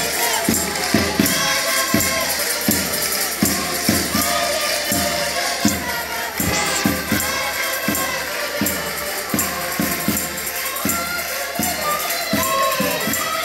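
Portuguese folk group singing in chorus to button accordions, with a tambourine and a steady beat about twice a second.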